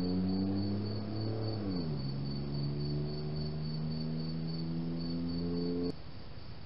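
Crickets chirping in a steady pulsing rhythm, about three chirps a second. Under them runs a low mechanical drone that drops in pitch about two seconds in and cuts off suddenly near the end.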